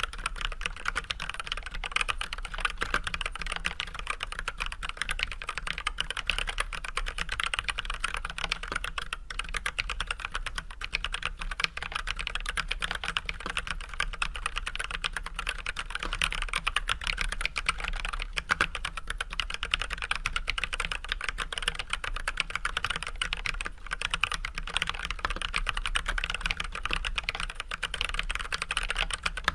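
Continuous fast typing on an Archon AK87 mechanical keyboard fitted with unlubricated Everglide Red 67g linear switches with switch films and white PBT keycaps: a dense, even stream of key clacks.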